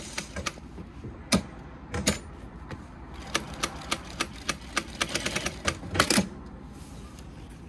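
Yamata FY9300-D4 direct-drive industrial straight-stitch sewing machine stitching through vinyl in short runs of rapid, even ticking, with a few louder sharp clacks. The stitching stops about six seconds in, leaving a low hum.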